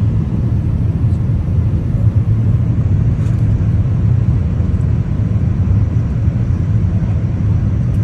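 Steady low rumble of jet engines and rushing air heard inside an airliner cabin in flight.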